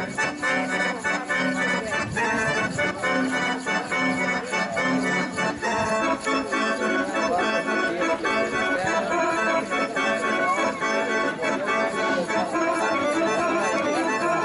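Lively Serbian folk dance music for a kolo, carried by an accordion-like reed melody over a fast, even beat.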